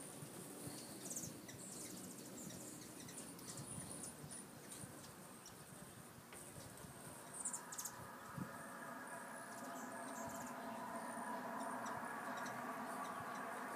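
Hummingbirds at feeders giving short, high, squeaky chip and twitter calls. From about halfway a steady wing hum joins in and grows louder toward the end.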